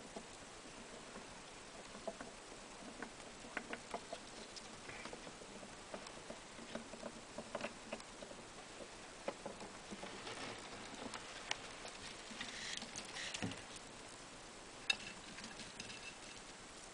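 A small pet hamster's feet and claws pattering and scratching faintly as it scurries over tiles, wood and shavings, with a busier patch of rustling past the middle and one sharper click near the end.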